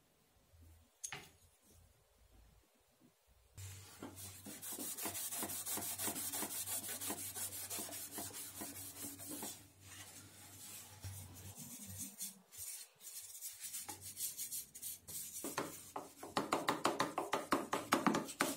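A cloth pad rubbed back and forth by hand over a flat copper sheet on a wooden bench, scouring and polishing its surface. After a near-quiet start with a single click, quick steady strokes run for several seconds, pause, then return louder near the end at about five strokes a second.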